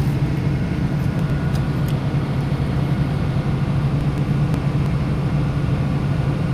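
Chainsaw engine running at a steady speed, with no rise or fall in pitch.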